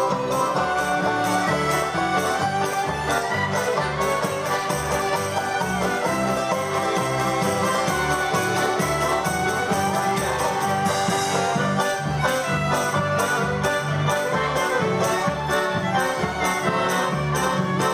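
Live Ukrainian folk band playing a polka: accordions, fiddle, acoustic guitar and plucked strings over the steady beat of a bass drum.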